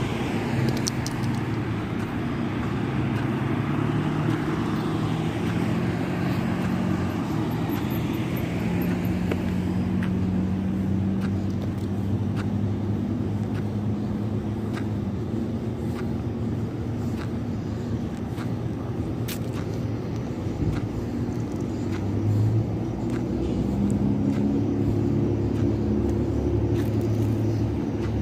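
A car engine running with road noise as the car moves along, its low hum shifting in pitch as the speed changes.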